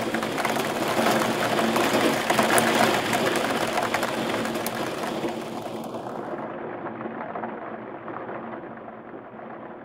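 Soundtrack outro: a dense rain-like hiss over faint held low tones. About six seconds in it turns muffled, and then it fades out.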